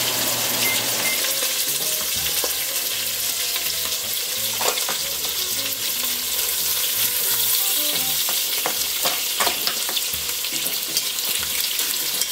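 Chicken thighs sizzling and spattering in hot olive oil in the Instant Pot's steel inner pot, a steady frying hiss, with a few sharp clicks of metal tongs against the pot as pieces are lifted out.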